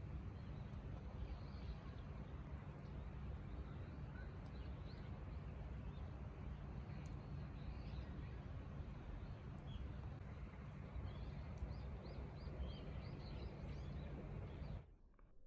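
Wind rumbling on the microphone, with small birds chirping faintly over it and a quick run of chirps near the end; the sound cuts off abruptly just before the end.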